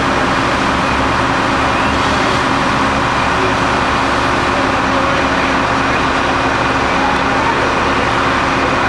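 Steady drone of an idling vehicle engine, with a constant low hum and no change in pitch.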